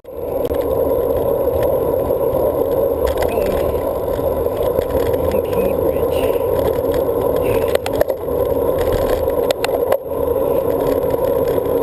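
Steady, muffled wind and road noise from a bicycle rolling along, picked up by a handlebar-mounted GoPro camera. A few sharp knocks come around eight and ten seconds in.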